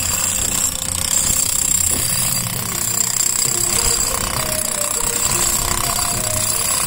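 Handheld jackhammers (demolition breakers) chiselling into a concrete bridge deck, running steadily without pause.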